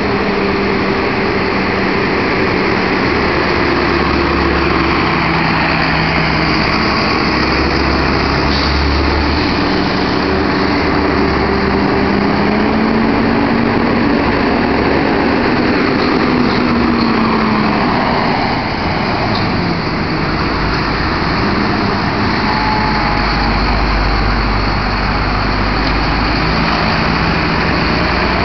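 Several school buses' diesel engines running together in a steady, loud rumble, their pitch rising and falling as drivers rev up to pull out in line. The low rumble grows heavier in the second half.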